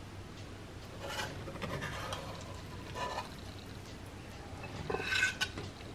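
Faint scraping of a spatula cutting through baked oatmeal in a cast iron skillet and lifting out a slice, in a few short bouts.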